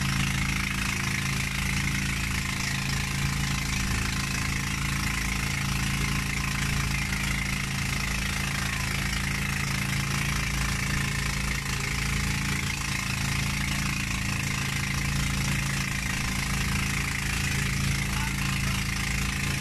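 Outrigger bangka boat's inboard engine running steadily while underway, under a constant rush of wind and water.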